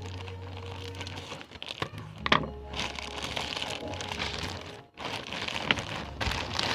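Parcel packaging crinkling and rustling as it is handled and opened, with a few sharp cracks about two seconds in, over background music.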